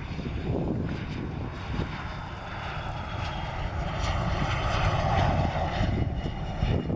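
Cessna Citation VII business jet's twin Garrett TFE731 turbofan engines whining as it passes low on landing. The pitch falls slowly, and the sound grows louder about four seconds in as the jet comes by at touchdown.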